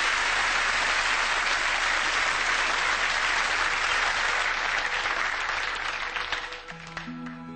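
Studio audience applauding, dying away near the end as the song's instrumental introduction begins with held low notes.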